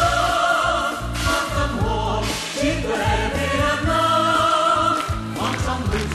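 A group of voices singing a song with instrumental accompaniment, holding long notes.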